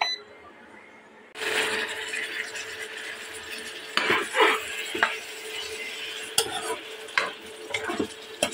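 Chicken and potato curry sizzling in a nonstick pan. The sizzle comes in suddenly about a second and a half in, and a spatula stirs through it, scraping and knocking against the pan several times.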